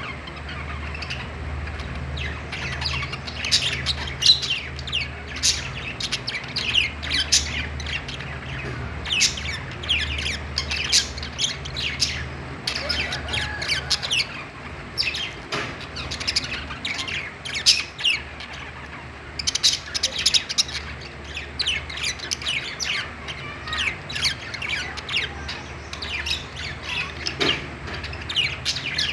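A group of budgerigars chirping and squawking together in quick, overlapping short calls, briefly thinning out about two-thirds of the way in, over a steady low hum.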